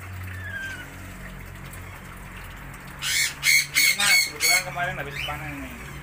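Rainbow lorikeets screeching: a quick run of about five loud, harsh calls starting about three seconds in, with a faint falling whistle near the start.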